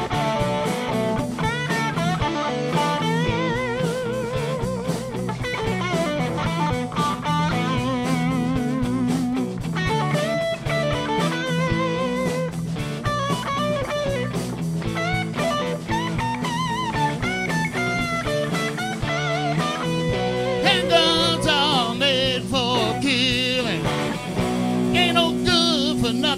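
Live classic rock band playing at full level: electric guitars over bass and drums, with a lead line of bent, wavering notes.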